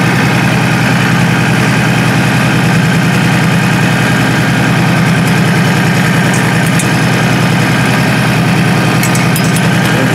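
Honda Shadow Spirit 1100's V-twin engine idling steadily, heard up close, with a fast, even pulse.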